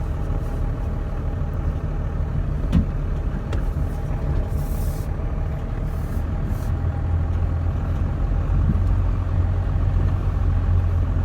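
A vehicle engine running with a steady low rumble, which grows louder about seven seconds in. There is a single short knock about three seconds in.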